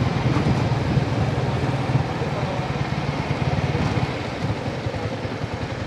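Motorcycle engine running steadily while the bike rides along, under a steady rush of road and air noise. It eases a little about four seconds in.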